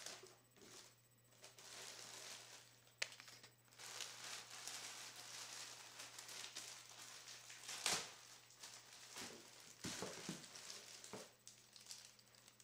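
Faint crinkling and rustling of plastic packaging as a motherboard's bundled cables and accessories are handled, with a couple of sharp clicks, about 3 and 8 seconds in. A steady low hum runs underneath.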